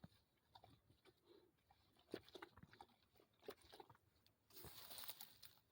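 Dog lapping water, heard faintly as irregular wet clicks and slurps, with a denser run of lapping near the end.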